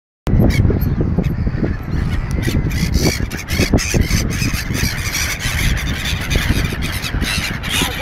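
A large flock of gulls calling as they swoop in over bread on the ground, with strong wind buffeting the microphone, the wind rumble being the loudest part.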